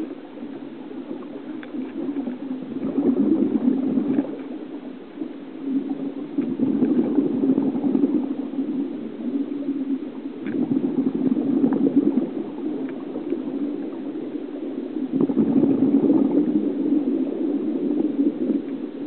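Scuba regulator exhaust bubbles gurgling underwater, swelling about every four seconds with each breath, heard muffled through an underwater camera housing.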